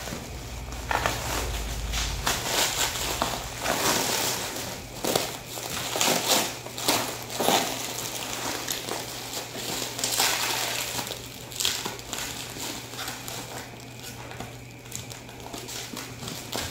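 Bubble wrap crinkling and rustling unevenly as it is pulled and peeled off a parcel by hand.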